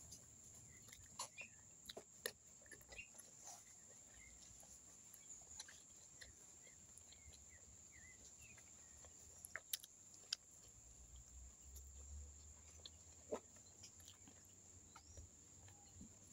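Near silence: faint outdoor background with a steady high hiss, scattered soft clicks and a few faint bird chirps.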